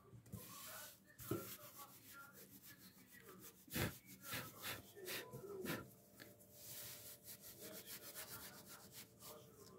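Faint rubbing and brushing of hands across a sheet of paper, with two light knocks.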